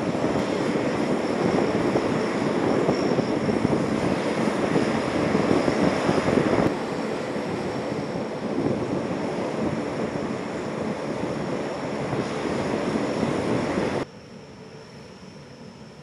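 C-130 Hercules transports taxiing in a line, their turboprop engines and propellers running with a loud, steady drone and a faint high whine. The drone steps down a little about halfway through and drops sharply to a much quieter hum about two seconds before the end.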